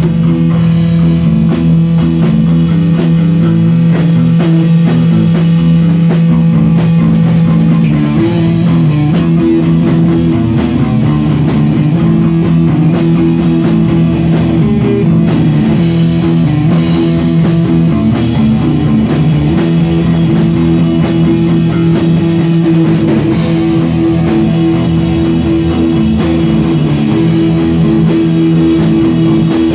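A rock band playing loudly and without a break: electric bass, guitar and a drum kit with frequent cymbal and drum hits. The low held notes of the riff change about eight seconds in.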